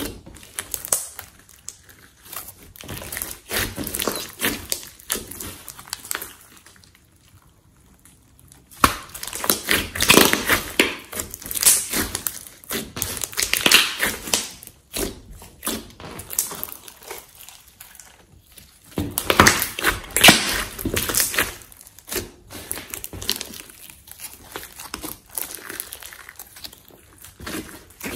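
Hands kneading, poking and squeezing a large mass of thick glossy slime, giving sticky, clicking squishes in irregular bouts. There is a quiet lull about seven seconds in, and the sound is louder around ten to fifteen seconds and again around twenty seconds.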